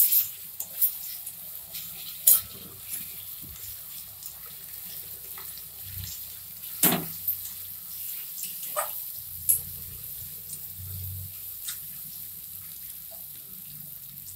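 Onions and spice pastes sizzling steadily in hot oil in a metal kadai, stirred with a steel spatula that scrapes and clicks against the pan now and then. The loudest clack comes about seven seconds in.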